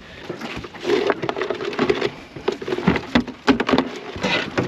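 Irregular clattering, knocking and scraping of mud crabs and the crab pot being handled, the hard shells and claws rattling against the pot and each other.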